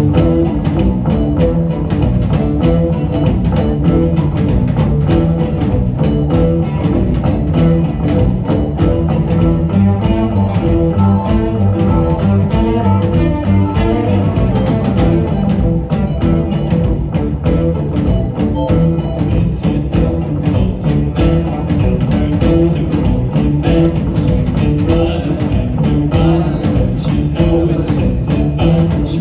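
Live psychedelic rock band playing: electric guitars over a drum kit in a dense, loud, steady groove.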